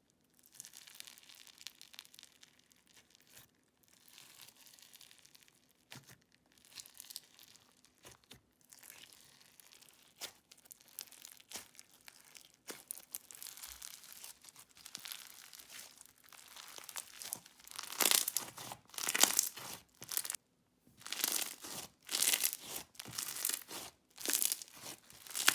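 Crunchy bingsu bead slime squished and pressed by hand, its plastic beads crackling and crunching. It is faint at first, and in the last seven seconds it turns into louder crunching squeezes about once a second.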